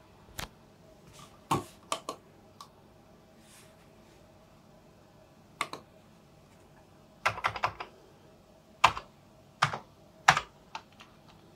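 Computer keyboard keys being pressed in irregular short runs: single keystrokes and small groups, with a quick burst of several keys a little past the middle.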